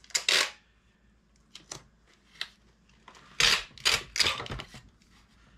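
Packing tape being pulled off a handheld tape gun and laid onto a cardboard box: a short rip just after the start, a few small clicks, then a cluster of loud tape rips about three and a half seconds in.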